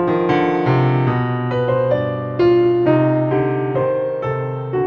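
Background piano music: a melody of notes changing every fraction of a second over held low notes.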